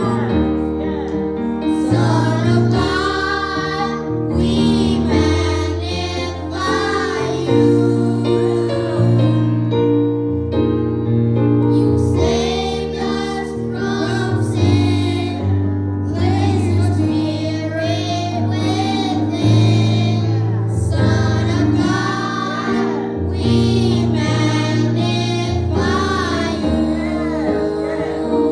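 A youth choir singing a gospel song over long held keyboard bass notes.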